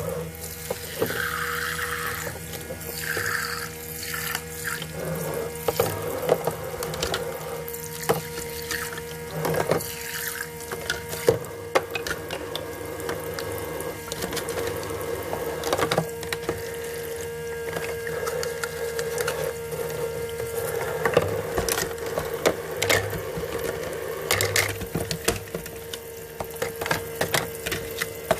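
Small battery-powered water pump of a toy kitchen sink humming while water runs from its miniature faucet, with frequent small plastic clicks and knocks.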